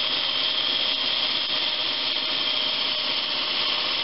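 Wood lathe running while a drill bit held in the tailstock chuck bores into the end grain of the spinning workpiece, a steady scraping hiss. This is the second, larger bit following an earlier pilot hole, so it cuts under lighter load.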